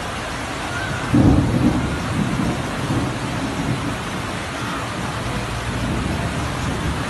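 Steady rushing noise of a rainstorm and floodwater in a flooded street, with a stronger low rumble about a second in.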